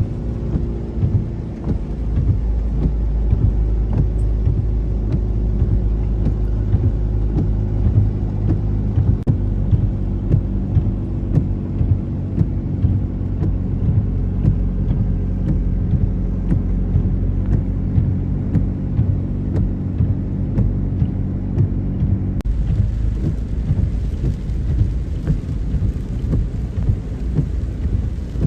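Heavy rain with a motor vehicle engine running steadily underneath. Near the end the sound cuts abruptly to rain with a low rumble and no engine tone.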